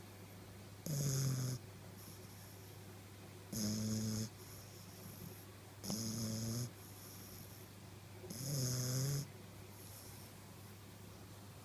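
British bulldog puppy snoring in its sleep: four short, pitched snores, one about every two and a half seconds.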